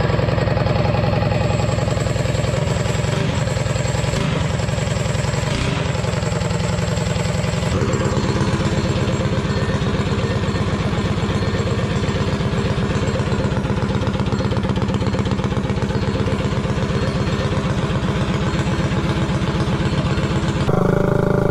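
Tillotson 263cc single-cylinder four-stroke engine on a mini bike, running at a fairly steady speed. Its note changes about eight seconds in and again near the end.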